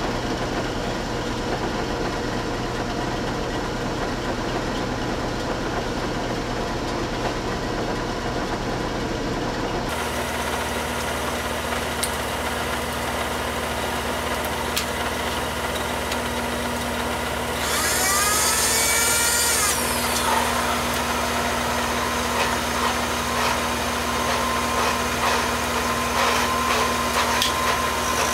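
Benchtop milling machine running, its motor and spindle giving a steady hum that changes character abruptly about a third of the way in. Past the middle comes a loud hiss of about two seconds, and faint ticking follows near the end as the roughing end mill is brought up to the cast iron spacer to start the cut.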